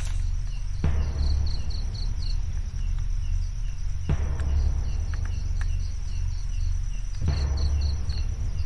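Insects, crickets among them, chirping and trilling steadily, with short chirps in quick runs, over a steady low rumble.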